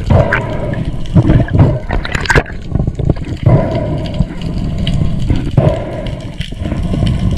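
Water rushing and swishing around an underwater camera housing as the diver moves, with a few sharp knocks and clicks in the first couple of seconds.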